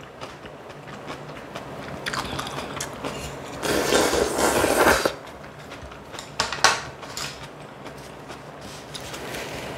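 Close-miked eating sounds of clam kalguksu: wet chewing of noodles and clams, with a longer slurp of noodles or broth about four seconds in and a couple of sharp utensil clicks a little after six seconds.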